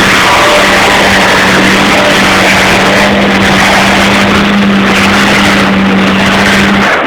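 A trials car's engine running hard at steady high revs, very loud and close, with a dense rushing noise over the held engine note; it cuts off suddenly near the end.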